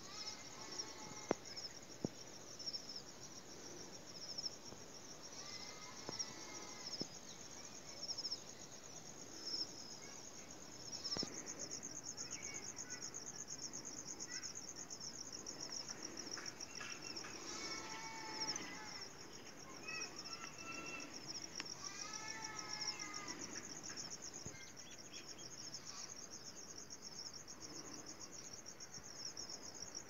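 Insects trilling in a steady, high, finely pulsing drone, with a bird calling in short repeated chirp phrases several times. Two sharp ticks near the start.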